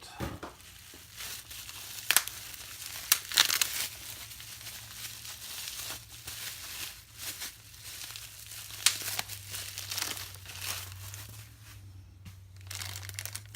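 Packaging wrap being handled, crinkled and torn open by hand, in irregular rustles with a few sharp crackles.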